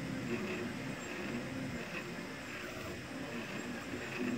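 CoreXY 3D printer's stepper motors whining in short, repeated rising-and-falling arcs of pitch as the print head traces curves, over a steady whirring hiss.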